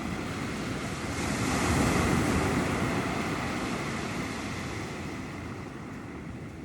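Ocean surf: a wave swells about a second in and slowly washes away, with wind on the microphone.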